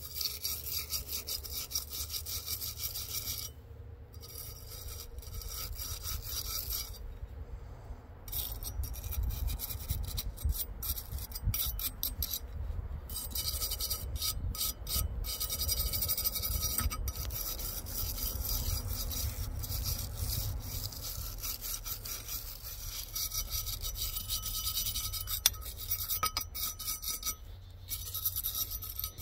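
Wire brush scrubbing the metal exhaust deflector of a Poulan Pro chainsaw muffler clean, in rapid back-and-forth strokes. The scratching stops for a moment a few times.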